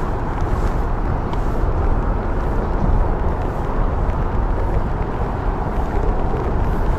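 Wind buffeting the microphone: a steady, loud low rumble with a rushing noise over it.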